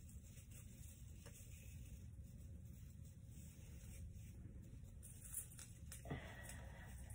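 Near silence: room tone, with a faint tick about five and a half seconds in and a brief soft rustle about six seconds in.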